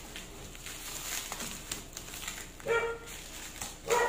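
Plastic stretch wrap on a cardboard box crinkling as it is cut and pulled off with scissors. A dog gives two short, high yips, about two-thirds of the way through and again at the very end.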